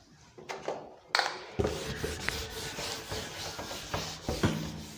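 Handheld whiteboard eraser rubbing across a whiteboard, wiping off marker drawings, starting about a second in, with a few knocks of the eraser against the board.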